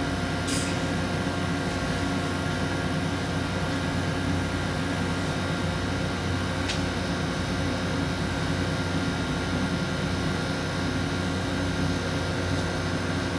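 A steady mechanical hum with several held tones over a noisy rush, like a fan or air-conditioning unit running.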